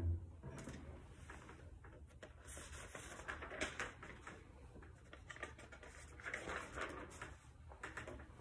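The last bowed cello note breaks off right at the start. Then there is only quiet handling noise, soft rustles and small clicks and knocks, as the cello and bow are moved about.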